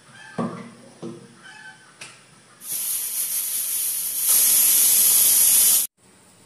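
Pressure cooker on a gas burner venting steam through its weight valve in a loud, steady hiss. The cooker has come up to pressure. The hiss grows louder partway through and stops abruptly, after a couple of light knocks at the start.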